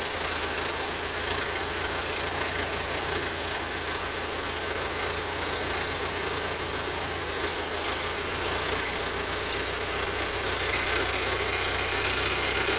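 Diesel engine of heavy machinery running steadily, with a constant low hum.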